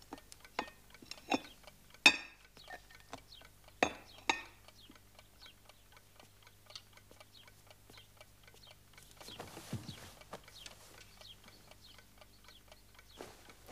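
A mechanical clock ticking steadily, with a sharp porcelain clink about two seconds in as a cup is set on its saucer, a few softer knocks, and a soft rustle around ten seconds.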